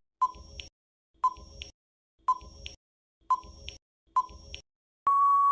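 Quiz countdown-timer sound effect: five short electronic beeps about a second apart, then one longer steady beep that signals time is up.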